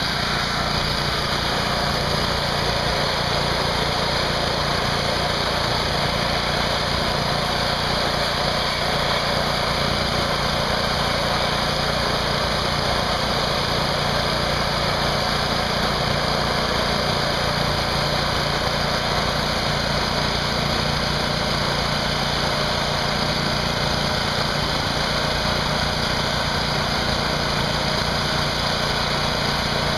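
Small gasoline engine of a 2500 psi pressure washer running steadily, with the hiss of its high-pressure water spray striking a Tesla turbine's disk.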